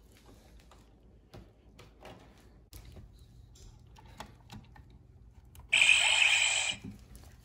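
Faint plastic clicks and handling as a coin is fitted into a Power Rangers Lightning Collection Power Morpher toy. About six seconds in, the morpher's small speaker plays a loud electronic activation sound effect for about a second, the sign that it has recognised the red Power Coin.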